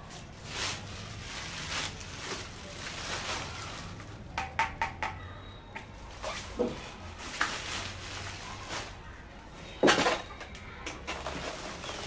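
Clear plastic wrapping crinkling and rustling in irregular bursts as it is pulled off a water heater, with the loudest burst about ten seconds in.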